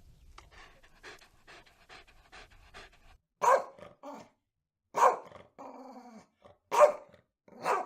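A dog panting quickly for about three seconds, then four loud, short barks about a second and a half apart.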